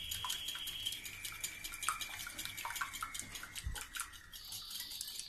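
Small metal whisk beating egg whites in a ceramic bowl: a fast, steady run of light clicks as the wires strike the sides of the bowl.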